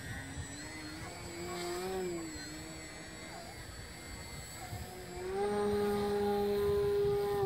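Electric motor and propeller of a radio-controlled park-flyer biplane. Its whine rises and falls in pitch with the throttle, then from about five seconds in it holds a louder, steady high-throttle whine as the plane hangs nose-up in a hover.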